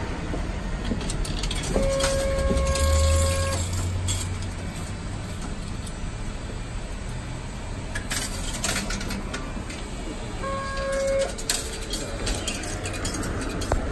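Inside an Okayama Electric Tramway streetcar drawing into its terminal stop: a low motor hum that swells for a couple of seconds and then settles, a steady electronic tone that sounds twice, and scattered clicks and short hisses as the tram comes to rest.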